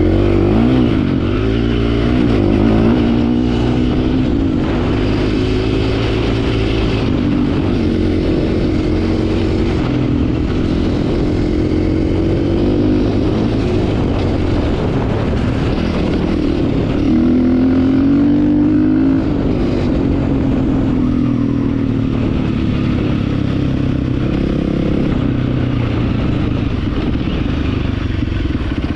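Dirt bike engine running under changing throttle as it rides, its pitch rising and falling, with a hard rev about two-thirds of the way through.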